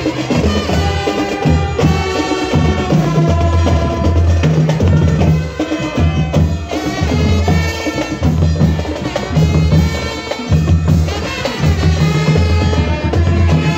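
Live brass band playing, with held horn notes over a steady beat of low bass notes and drum strokes.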